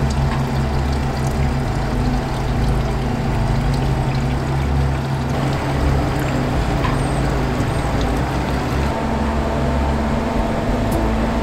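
Yamaha outboard motor idling with a steady low hum, over a constant splash of pouring water.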